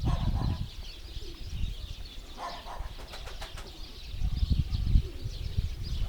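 Domestic pigeons: bursts of wing-flapping near the start and again about four seconds in, with short cooing calls in between. Small birds chirp faintly throughout.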